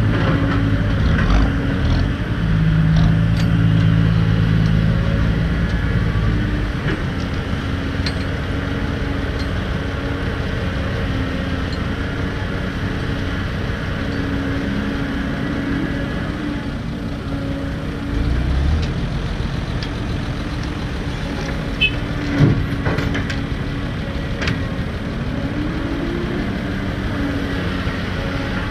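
Heavy diesel engine running: loud, with a deep drone for about the first six seconds, then quieter and steady. Two sharp knocks a little past twenty seconds in.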